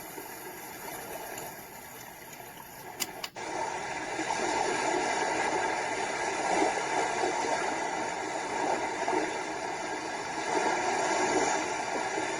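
A sleep sound machine's speaker playing its soothing-sound tracks as a steady rushing noise. About three seconds in, a couple of clicks and a brief dropout mark the switch to the next track, a louder, fluttering rushing sound.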